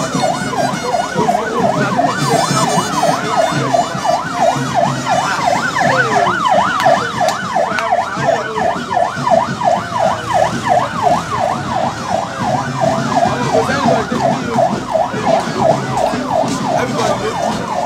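Vehicle siren sounding a fast yelp, its pitch swinging up and down about three to four times a second without a break.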